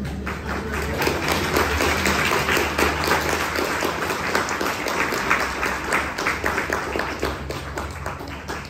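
Audience applauding: many hands clapping densely, thinning out near the end.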